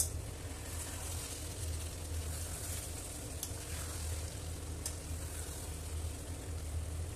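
Chicken curry sizzling in a metal kadai while a spatula stirs and turns it, with a few sharp clicks of the spatula against the pan. A steady low hum runs underneath.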